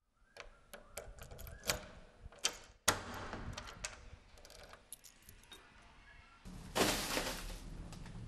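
A bunch of keys jangling, with clicks as a key works a door lock and one sharp click about three seconds in. Near the end a plastic grocery bag rustles as it is set down.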